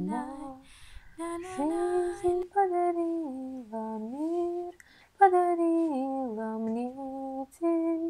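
A woman's voice singing a slow, lullaby-like melody, unaccompanied, in several phrases of long held notes that step and slide downward.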